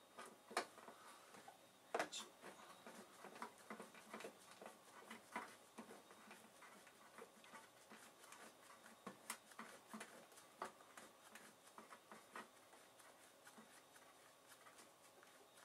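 Faint, irregular small clicks and scrapes of a hand screwdriver turning Torx screws into the dishwasher's lower guard panel, with two sharper knocks in the first two seconds.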